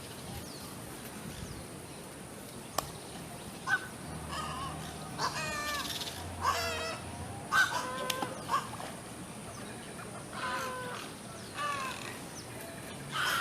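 Several birds giving harsh, wavering calls in scattered bursts, starting about four seconds in, with a few sharp clicks among them.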